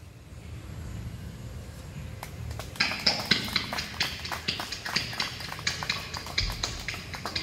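A small group of people applauding: scattered hand claps that start about three seconds in, over a low rumble.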